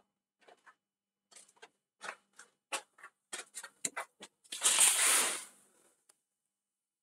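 Irregular light clicks and taps, then a louder rushing, scrape-like noise lasting about a second, past the middle, that fades away.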